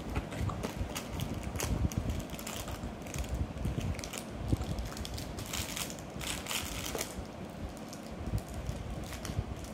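Foil-wrapped chocolates crinkling and clattering in a plastic tub as small hands rummage through them and pull pieces out, in irregular bursts of rustling and clicks.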